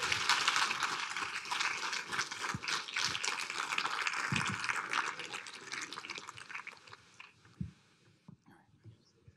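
Audience applauding, fading out about seven seconds in.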